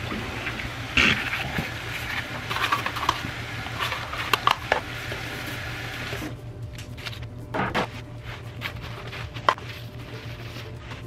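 Water running from a tap, with knocks and clatter of handling; the flow stops about six seconds in, and a few light knocks follow.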